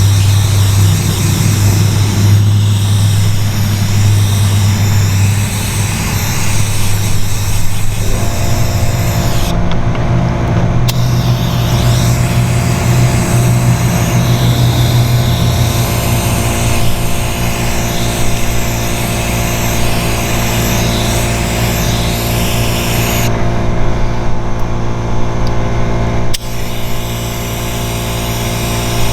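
Compressed air hissing steadily from a paint spray gun, blown over a fresh coat of dye to dry it, shutting off twice briefly. A steady motor hum runs underneath, taking on a higher, multi-toned whine about eight seconds in.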